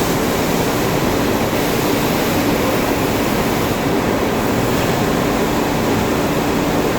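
Steady loud rushing noise with no distinct tones or beats.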